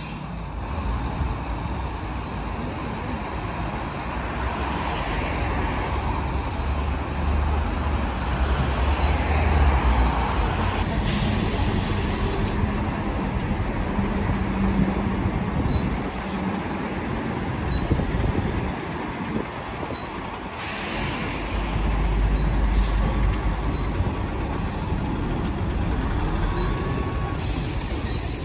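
City street traffic: heavy-vehicle engines rumbling, with three short hisses of compressed air from air brakes. A faint ticking about once a second runs through the middle part.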